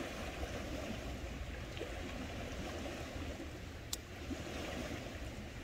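Steady wash of small waves on a rocky shore, with a low wind rumble on the microphone and one short, sharp click about four seconds in.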